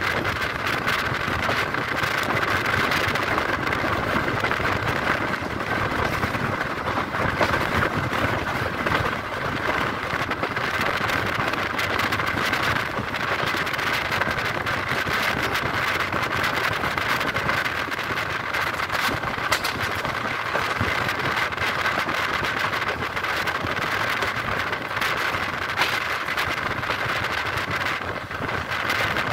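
Steady running noise of a moving passenger train heard at the carriage window: wind rushing past and wheel-on-rail noise, with many short sharp clicks scattered through it.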